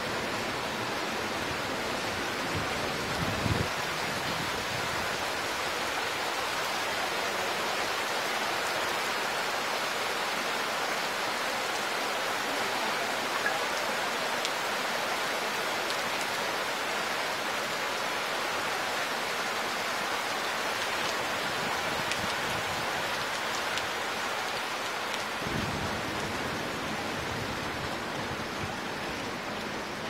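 Heavy rain falling steadily, an even hiss of a downpour with no break.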